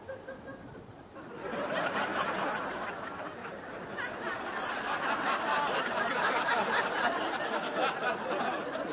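Audience laughing, breaking in about a second and a half in and carrying on, with many voices at once.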